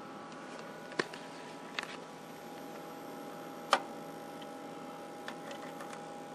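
Sharp clicks and taps of a test probe and clip being handled among the wiring of a tube TV chassis, a few scattered over several seconds, the loudest about three and a half seconds in. Under them runs a steady electrical hum of several even tones.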